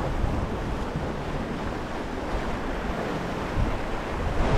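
Ocean surf washing against a rocky shore, a steady rushing noise, with wind on the microphone.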